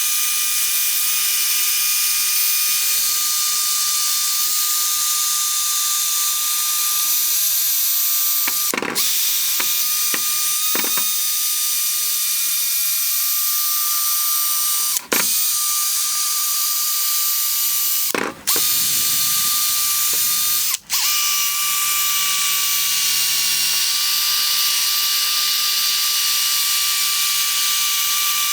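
Electric drill spinning a 3M P3000 sanding disc against a faded plastic headlight lens: a steady high whine with sanding hiss, cutting out briefly four times.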